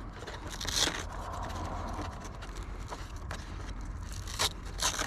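Scraping and scattered clicks of a LiPo battery pack being handled and pulled out of the nose of a foam RC airplane, with brief rushes of scraping near the start and near the end.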